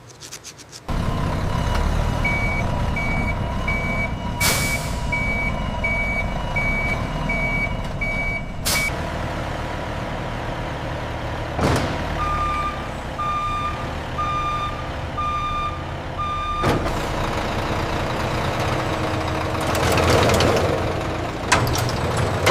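A vehicle's reversing alarm beeping over a running engine: first a long run of high beeps, then five lower, slower beeps. A few sharp knocks fall in between, and a louder hissing swell comes near the end.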